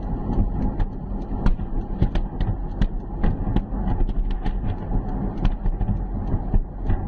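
Steady low road and engine rumble of a moving vehicle, heard from inside it, with many short sharp cracks coming irregularly, several a second.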